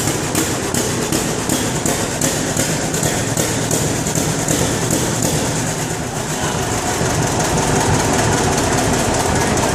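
John Deere 60's two-cylinder engine running steadily with an even, rhythmic beat.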